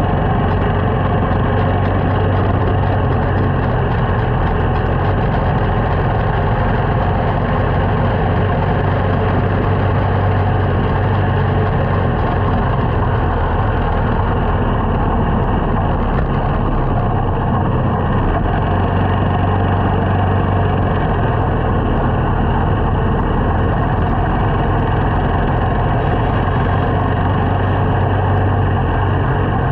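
Small motorcycle's engine running at a steady pitch and even loudness while being ridden.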